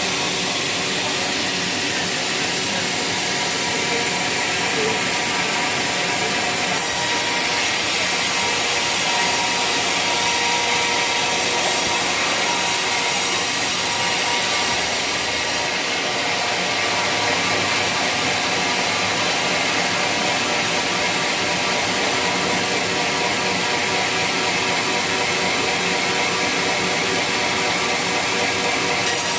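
Sawmill saw blade running and cutting through waru (sea hibiscus) wood, a steady loud hiss over the machine's hum. The cutting hiss grows heavier for several seconds about a quarter of the way in, then eases back.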